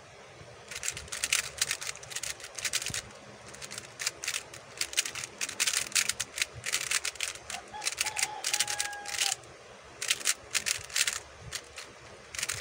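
A YJ Guanlong Plus 3x3 plastic speedcube being turned rapidly by hand in a speedsolve, its layers clicking and clacking in quick runs of turns. The runs are separated by brief pauses of about a second.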